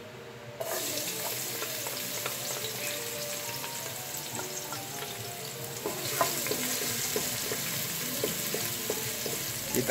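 Chopped garlic sizzling in hot cooking oil in an aluminium pressure cooker pot. The sizzle starts about half a second in, with a wooden spatula scraping and stirring through it.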